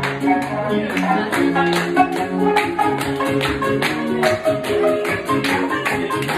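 Live Okinawan folk music on plucked string instruments, a small lute and a guitar, playing held notes over a quick, steady strummed beat.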